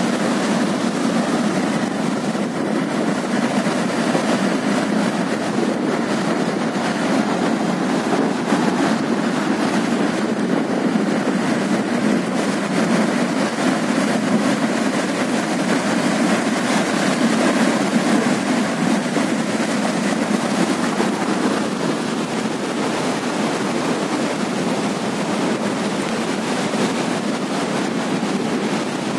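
River in flash flood: muddy floodwater churning in big standing waves, a loud, steady, unbroken rushing noise.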